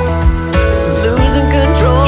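Music with held notes over a steady bass line and a wavering melody line.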